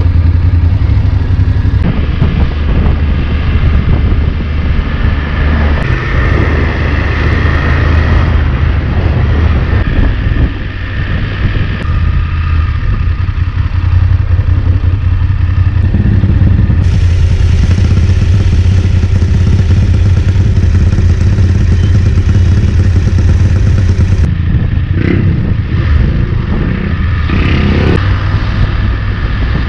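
BMW F 850 GS's parallel-twin engine running as the bike pulls away from a standstill and rides slowly through town traffic in second gear, up to about 30 km/h.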